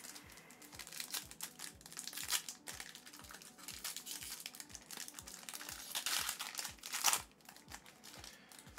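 A foil trading-card pack wrapper crinkling and tearing as gloved hands rip it open, crackling unevenly and loudest about seven seconds in. A faint steady music beat runs underneath.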